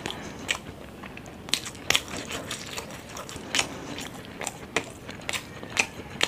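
Close-up eating sounds: a person chewing and biting into saucy fried Indo-Chinese food, with sharp, irregular wet clicks and crunches from the mouth.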